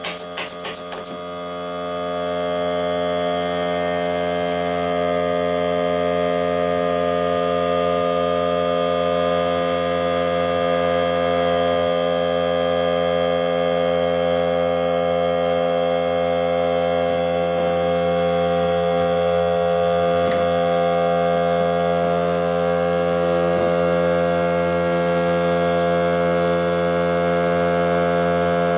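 A pneumatic brad nailer fires in quick succession for about the first second. Then the Greenworks 40 V cordless air compressor's motor starts, swells over a second or so and runs with a steady hum, refilling its tank after the air has been used.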